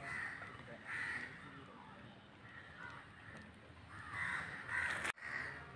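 Crows cawing: a few short, harsh caws, one near the start, another about a second in, and two close together around four to five seconds in.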